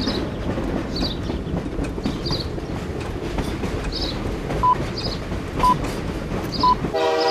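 Steady rumbling, rattling mechanical noise with faint high squeaks about once a second, like a train running on rails. A short high beep sounds about once a second in the second half.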